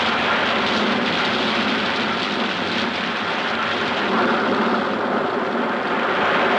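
Heavy rain falling steadily as a storm sound on an old film's soundtrack.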